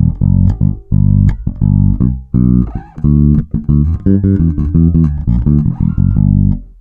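Ibanez SR-300 electric bass with PowerSpan Dual Coil humbucker pickups, played through an amp as a line of short notes with brief breaks, its three-band EQ turned all the way up for a thick, full tone. The notes stop just before the end.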